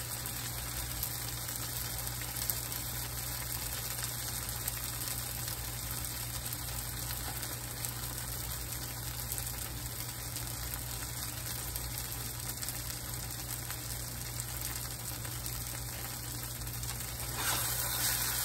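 Yellow squash and onions frying in oil in a skillet: a steady sizzling hiss as they brown, with a few light scrapes of a metal spatula turning them, getting louder near the end.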